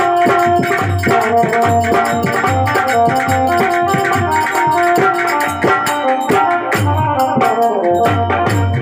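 Harmonium playing a melody with a steady, rhythmic hand-drum accompaniment; no singing.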